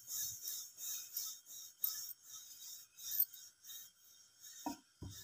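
Wooden rolling pin rolling out rice-flour roti dough on a glass plate: a rhythmic rasping, about two strokes a second, then two short knocks near the end.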